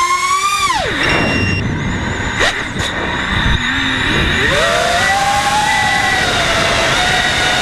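Nighthawk racing quadcopter's motors and propellers whining. The pitch rises, drops sharply as the throttle is cut just under a second in, stays low and ragged with two brief clicks, then climbs again and holds steady.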